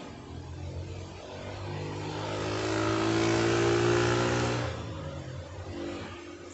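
A motor vehicle engine passing by at a steady pitch, growing louder to a peak around the middle, then fading away.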